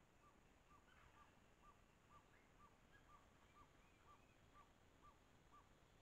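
Faint, steady series of short, evenly spaced whistled notes from a bird in the forest, about two a second, each note dipping slightly at its end, with a few fainter higher calls from other birds.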